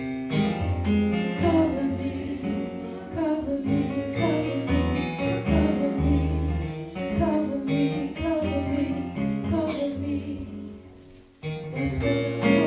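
Music: a song with singing over guitar and a bass line, dropping out for a moment about a second before the end and then resuming.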